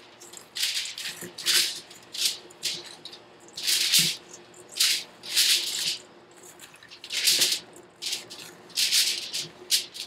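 Hands kneading ground meat with crushed crackers and dry seasoning in a stainless steel bowl: irregular squishing, crumbly rustles, roughly one a second, as the dry ingredients are worked in before anything wet is added.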